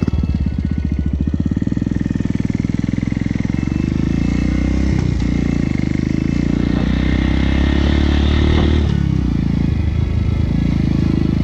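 Small motorcycle's engine running while being ridden on a dirt road, heard from the saddle. It is a steady, fast pulsing whose note dips and climbs again about nine seconds in.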